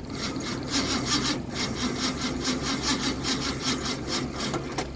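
1982 Ford Mustang GT's 5.0 V8 cranking on the starter without catching, in an even rhythm of about five strokes a second, as the battery runs flat.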